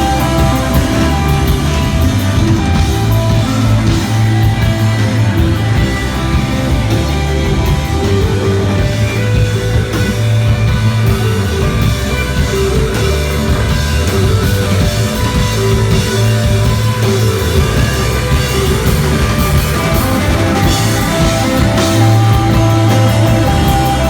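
Live instrumental desert rock from a guitar, bass and drums trio: a spacey, droning electric guitar over sustained bass notes, with the drum kit's cymbals keeping time.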